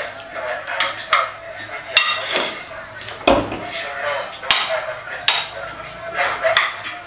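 Kitchen knife chopping green pepper on a ceramic plate, the blade clicking against the plate in irregular strokes about once a second. The heaviest knock comes about three seconds in.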